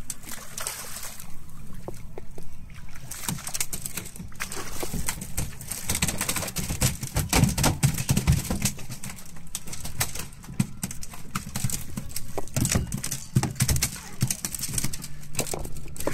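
Sea water splashing and sloshing against the side of a fishing boat as a rig of fish is hauled up to the surface. A low rumble rises and falls, loudest about halfway through.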